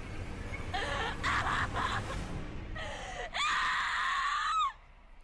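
A person sobbing and crying out in distress, then a long, high scream starting about three and a half seconds in that bends down in pitch and breaks off shortly before the end.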